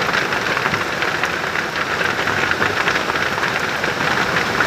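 Heavy rain falling: a steady, dense hiss made up of many small drop ticks.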